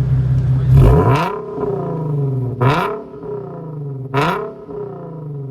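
Infiniti Q50 3.7's V6 engine revved through its exhaust: three sharp throttle blips about a second and a half apart, each rising in pitch and dropping back to idle.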